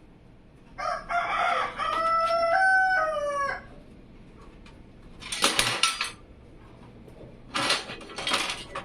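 A rooster crowing once, a long call that steps up in pitch and then falls away. It is followed by two short bursts of noise a couple of seconds apart.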